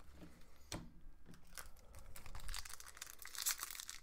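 Foil wrapper of a hockey card pack crinkling in the hands, with scattered light ticks, the rustling getting busier about halfway through.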